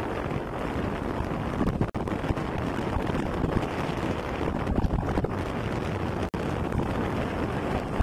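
Steady wind rumble buffeting a phone microphone as it moves along a road, with vehicle noise under it; the sound cuts out for an instant twice.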